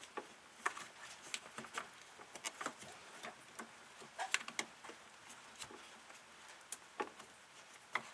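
Irregular light clicks, taps and small clanks of hand work on the engine, tools and parts being handled, scattered unevenly with a few sharper clicks.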